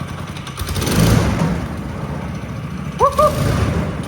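Small single-cylinder engine of a homemade Snowdog-style track sled running, swelling briefly about a second in. About three seconds in come two quick rising chirps, the loudest sound here.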